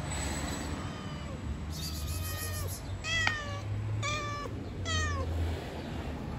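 Tabby cat meowing repeatedly: a run of short calls that fall in pitch, the clearest three about a second apart, over a steady low rumble.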